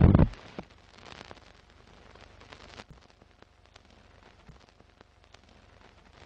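Old-film sound effect for a countdown leader: a loud thud at the start, then a faint crackle like a film projector, with scattered pops and clicks.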